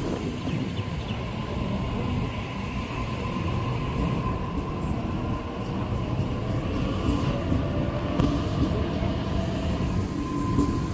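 Sydney Trains electric suburban train running at the platform: a steady rumble of wheels on rail with faint steady high tones over it.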